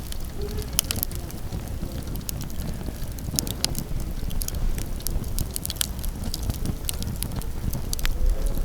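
Wood campfire crackling, with irregular sharp pops and snaps, over a low wind rumble on the microphone.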